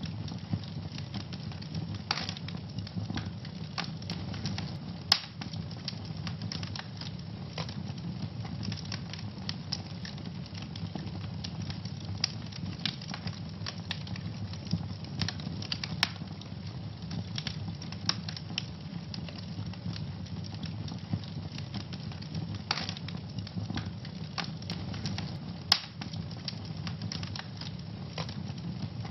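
Wood fire burning in a fireplace, crackling and popping irregularly over a steady low rumble of the flames, with a few sharper pops standing out.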